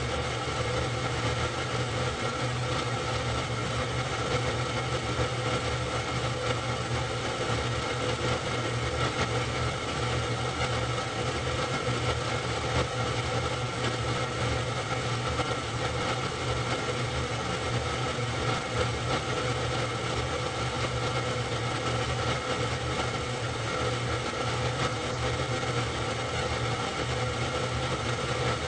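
Super 8 film projector running: a steady mechanical whirr and hum.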